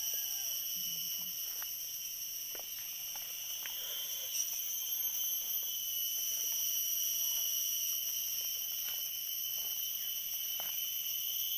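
Steady high-pitched drone of forest insects, several pitches sounding at once without a break. Under it come a few faint snaps and leaf rustles from a java plum branch being handled as its fruit is picked.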